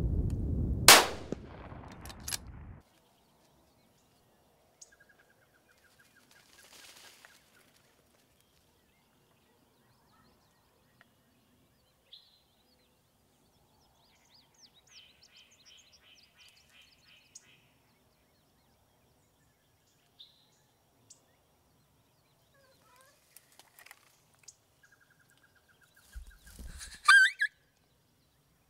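A single rifle shot about a second in, ringing out briefly. Then long quiet stretches with faint scattered calls, and near the end a short burst of high-pitched calls.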